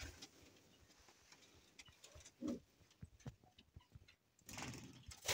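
Faint sounds from pigeons: scattered small ticks and a single short, low pigeon coo about two and a half seconds in, with a soft rustle near the end.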